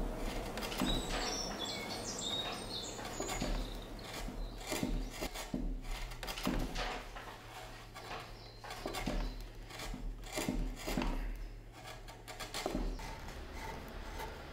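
Hand carving chisel cutting and paring wood in irregular short strokes, roughly one a second. Birds chirp during the first few seconds.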